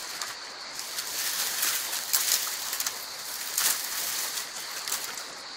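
Leafy branches and dry twigs rustling and crackling as they are pulled out and gathered by hand, in irregular bursts, over a steady high insect trill.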